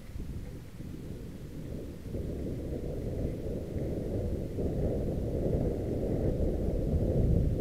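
Wind buffeting a helmet camera's microphone, mixed with the rumble of mountain bike tyres and the bike rattling over a dirt trail. It steps up about two seconds in and grows louder as the bike picks up speed.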